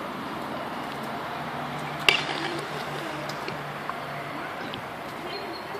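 A skateboard clacks once, a sharp hit with a short ring, about two seconds in, over a steady low hum.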